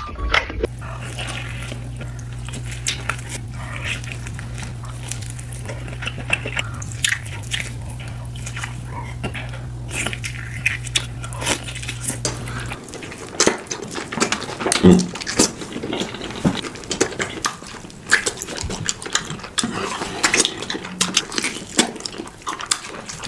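Close-miked eating sounds of steak: repeated wet chewing, biting and mouth smacks. A steady low hum underneath cuts off suddenly about 13 seconds in.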